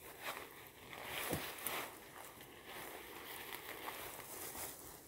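Leafy branches rustling and crackling as a man handles and ties them into a bundle with a twisted grass rope, in irregular rustles that are loudest between one and two seconds in.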